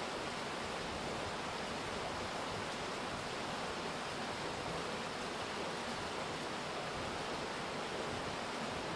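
Rain falling steadily: an even, unbroken hiss with no single drops standing out.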